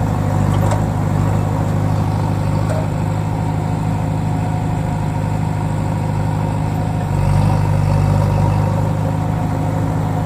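Vehicle engine running steadily at a low even pitch, growing slightly louder about seven seconds in.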